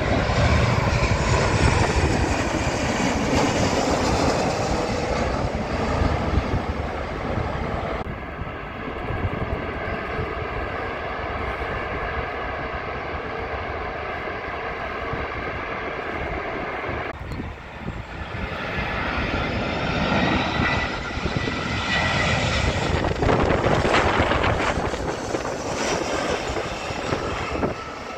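Jet airliner engines: a Boeing 737 passing low overhead on landing approach, its engine noise falling in pitch. After a cut comes a steadier engine whine with held tones from an airliner on the runway, then an Airbus A320-family jet on approach, growing louder with a rising whine.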